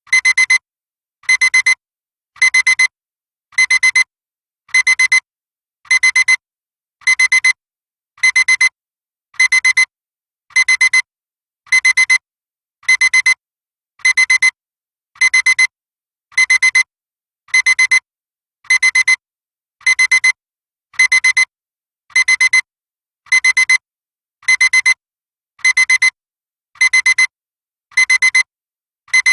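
Electronic alarm clock beeping: short bursts of high-pitched beeping repeat evenly about every 1.2 seconds, with silence between them.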